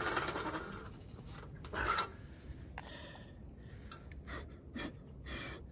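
A man breathing heavily in a string of short, wheezing, panting breaths while he crouches over his food. He puts the wheezing down to recent weight gain, with his belly pressing in as he hunches.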